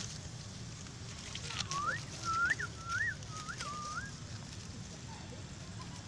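An animal's whistled call: five quick notes, each rising and falling in pitch, starting about a second and a half in, over a low steady outdoor background.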